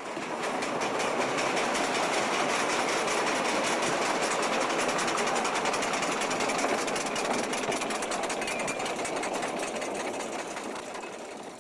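Demolition machinery rattling with a rapid, steady hammering, which fades out near the end.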